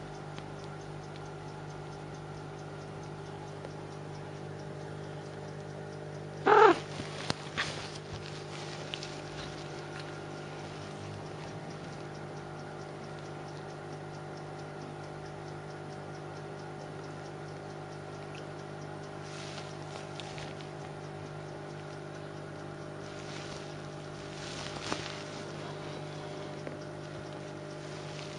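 A steady hum of several held tones, with one short, loud pitched sound about six and a half seconds in, followed by a few clicks. Soft rustles come near the twenty- and twenty-five-second marks, as a kitten shifts about on a fleece blanket.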